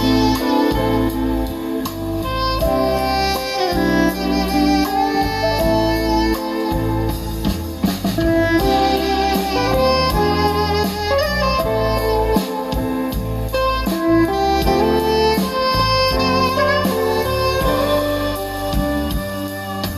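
Instrumental music played through a home-built loudspeaker during a midrange test: a melodic lead of held, pitched notes over a steady bass line.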